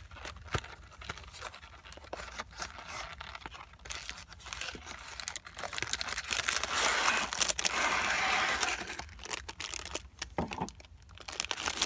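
Cardboard snack box being torn open and its plastic tray pulled out, with scraping, rustling and crinkling packaging. The loudest tearing comes about six seconds in and lasts about three seconds.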